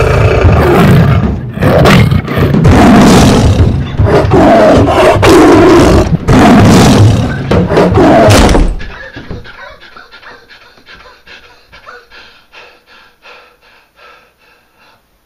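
A large animal roaring and growling loudly in four long blasts over the first eight or nine seconds, then a faint, fast tapping that fades away.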